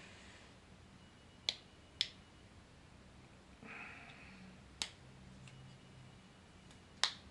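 Faint, sharp plastic clicks, four in all, with a brief scrape between the second and third, as the small hard-plastic pieces of a toy gun accessory are worked by hand, trying to get a stiff section to extend.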